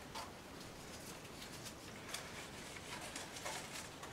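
Faint rustling and soft light ticks of a flat strip of midollino cane being curled around a flower arrangement and tucked in among its leaves.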